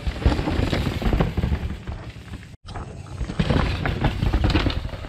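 Downhill mountain bikes clattering over a rock garden: tyres, chains and suspension rattling and knocking on rocks in a dense run of impacts. The sound cuts out for an instant about halfway, then a second bike clatters through.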